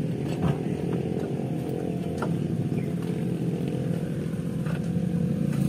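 Dump truck's diesel engine running steadily, with a few faint knocks over it.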